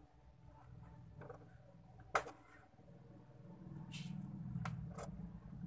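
A few light, sharp clicks and taps from handling the small parts of an opened computer mouse, over a low hum that grows louder about halfway through.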